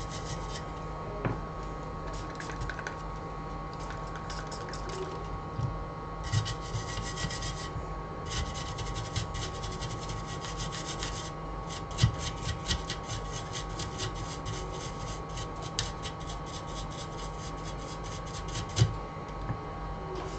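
Rapid scratchy rubbing strokes in bursts, like scrubbing or scraping on a small surface, the longest run lasting several seconds from about a third of the way in, with a few light knocks, over a steady electrical hum.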